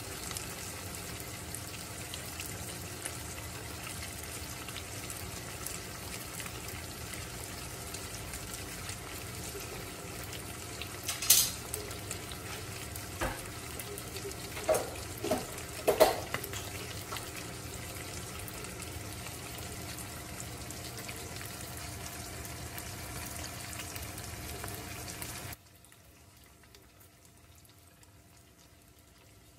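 Paccheri pasta with shrimp and bacon sizzling steadily in a frying pan, with a few sharp clinks around the middle. The sizzle cuts off suddenly near the end.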